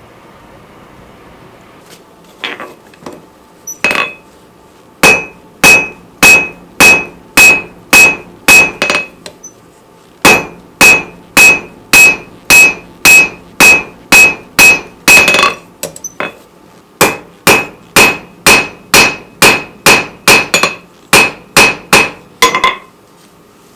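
Rounding hammer forging a steel bar on an anvil: a few light taps, then three runs of steady blows about two a second, each with a short bright ring, with brief pauses between runs.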